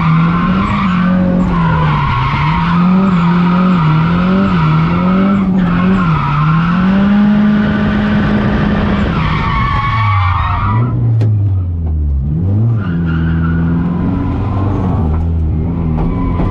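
Turbocharged SR20DET engine of a Nissan 240SX running hard, heard from inside the cabin, its revs rising and falling quickly with the throttle while the tires squeal. About ten seconds in the revs drop, and the engine settles at a lower, steadier pitch.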